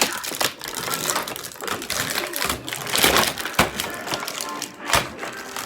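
Plastic and paper toy packaging crinkling and crackling as it is torn open by hand, with music playing in the background.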